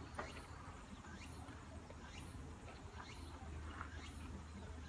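Faint outdoor ambience: an insect's high-pitched chirp repeating about once a second, over a low steady rumble.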